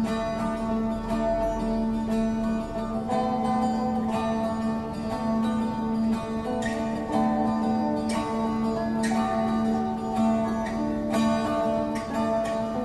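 Background music on a plucked string instrument: changing notes over a steady low drone.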